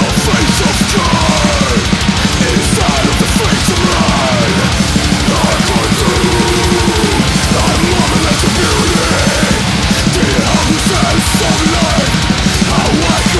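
Extreme metal track playing: very fast, relentless drumming under dense distorted guitars, the level loud and constant throughout.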